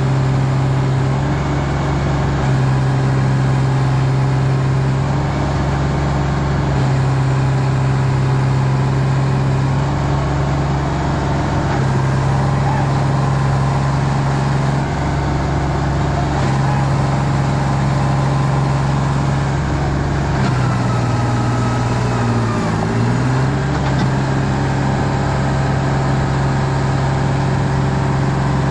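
John Deere 5310 tractor's three-cylinder diesel engine running steadily, hitched to a heavily loaded sugarcane trailer. About two-thirds of the way through, its pitch sags briefly and recovers.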